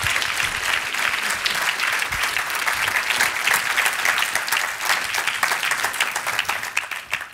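Audience applauding, dense steady clapping that dies away near the end.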